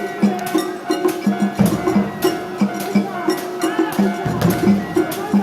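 Japanese shrine festival music (matsuri-bayashi): drums beaten in a quick, uneven rhythm, with sharp metallic strikes over a held high note.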